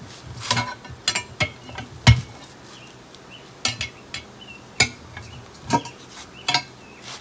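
Steel tire spoons clinking, knocking and scraping against a wheel rim as they pry the tire bead off, in irregular metal knocks, the loudest about two seconds in.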